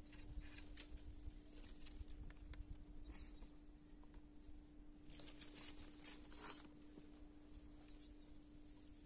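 Near silence: faint outdoor ambience with a steady low hum, a few soft clicks and a brief rustle about five seconds in.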